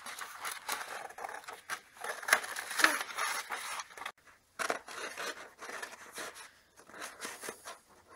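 Small child's scissors snipping through a large sheet of printer paper in irregular short cuts, the paper rustling as it is handled.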